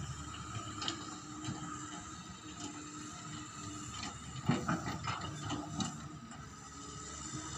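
Distant tracked hydraulic excavator at work: a steady engine drone with scattered faint clanks, and a brief cluster of louder knocks about four and a half seconds in.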